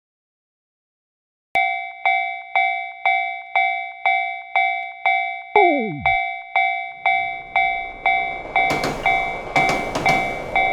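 Japanese railway crossing warning bell ringing about twice a second, starting after a second and a half of silence. A short falling tone sounds once in the middle, and the running noise of a train rises underneath in the second half, with wheel clacks near the end.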